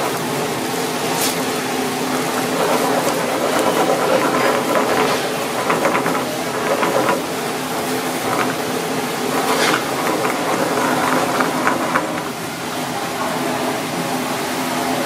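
Egg and sea grapes frying in a nonstick pan, a steady sizzle, while wooden chopsticks stir and scrape, tapping sharply against the pan now and then, in a cluster around the middle.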